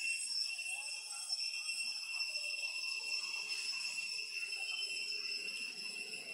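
Insects in the forest droning in chorus: a steady, high-pitched buzz that holds on without a break.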